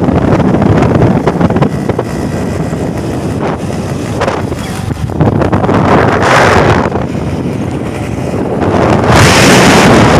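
Rushing wind buffeting the microphone of a moving motor scooter, over the steady running of small scooter engines. The wind surges louder about six seconds in and again near the end.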